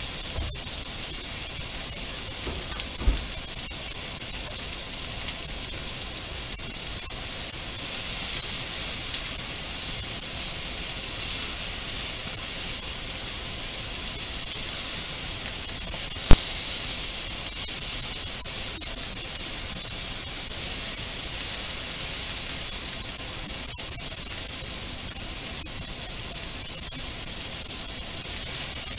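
Pork and vegetables sizzling in a frying pan with a steady high hiss as they are stir-fried with wooden chopsticks, with a sharp click a little past halfway.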